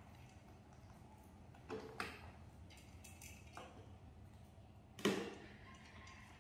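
A few light knocks and taps of plastic plates and the table while animals eat, the loudest about five seconds in, over a faint low hum.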